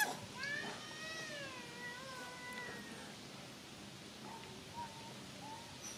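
Infant long-tailed macaque crying: one drawn-out call that slides down in pitch over about three seconds, then a few faint short coos near the end.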